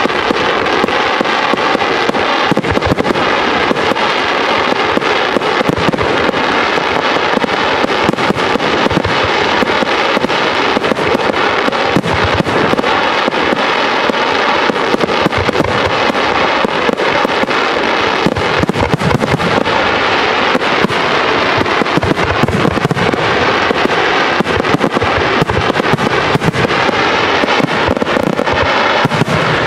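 Fireworks display going off without pause: a dense, continuous crackle packed with the bangs of bursting shells.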